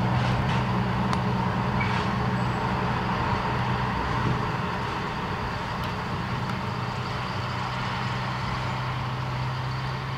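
The 1939 Davenport 25-ton side-rod diesel-mechanical locomotive's Caterpillar 3406 inline-six diesel engine running with a steady low drone as the locomotive moves along the track, slowly growing fainter.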